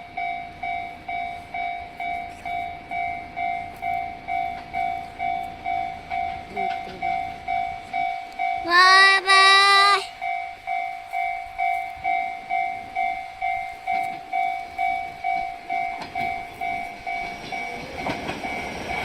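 Japanese railway level-crossing warning bell ringing its steady "kan-kan", about two strikes a second. About nine seconds in, a train horn sounds once for just over a second. Near the end the bell fades under louder, rising train noise.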